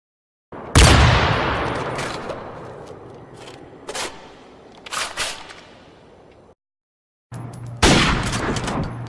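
Gunshot sound effects. A loud shot with a long echoing fade is followed by a few more scattered shots. After a brief gap of silence, a second clip gives another loud shot with a fading tail.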